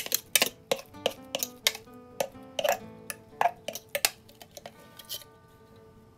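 A clear plastic container clinking and knocking against a glass bowl while a ground mixture is scraped out of it by hand: a quick, irregular run of sharp clicks that stops about five seconds in. Soft background music plays underneath.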